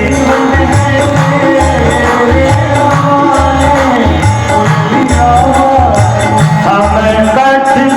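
Devotional Hindi bhajan music: a sustained melody over a steady hand-drum beat with jingling percussion, with no sung words.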